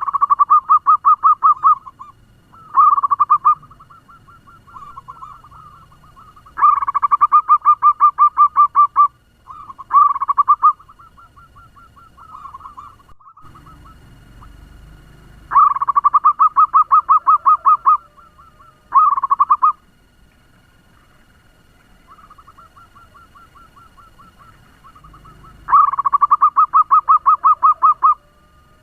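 Zebra dove (perkutut) song: about seven runs of rapid, evenly repeated staccato cooing notes, each run lasting one to two and a half seconds, with fainter runs of the same notes in between.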